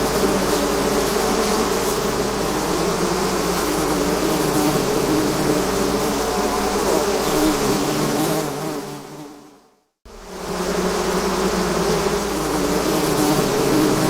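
A swarm of bees buzzing, many wingbeat tones overlapping in a dense, steady hum. About nine seconds in, the buzz fades out to a moment of silence, then fades quickly back in.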